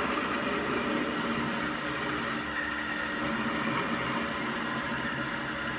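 A machine motor running steadily, giving a continuous hum.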